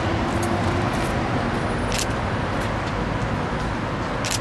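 Steady outdoor street background with a low traffic-like rumble, and two brief sharp clicks, about two seconds in and near the end.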